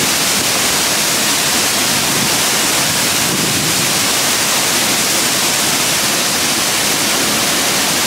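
Waterfall pouring into a rock pool: a loud, steady rushing of falling water.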